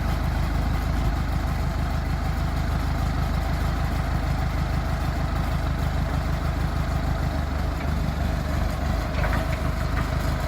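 Massey Ferguson 275 tractor's Perkins four-cylinder diesel idling steadily.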